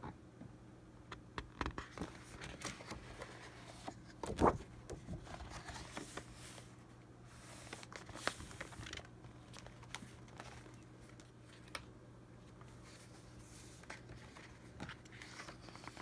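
Sheets of patterned scrapbooking paper being handled and turned over: soft rustling and crinkling with scattered light taps, the loudest a brief rustle about four and a half seconds in. A faint steady hum runs underneath.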